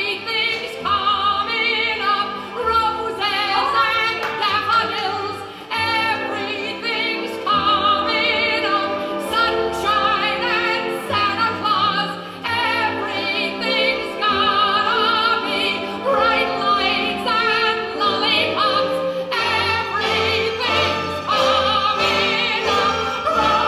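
Operatic singing with orchestral accompaniment, the voice held in long wavering notes.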